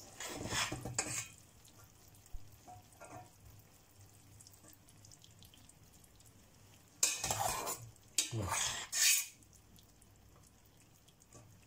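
Cooked spaghetti going into a frying pan of hot tomato sauce, sizzling and rustling in three short bursts: one at the start and two close together about seven to nine seconds in, with quiet between.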